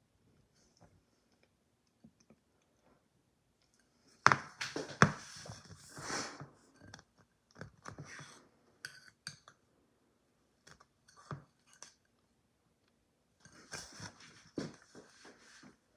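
Eating ice cream with a spoon: bursts of spoon scraping and clicking against the ice cream and its container, mixed with mouth sounds of eating, in a few short clusters with quiet gaps between.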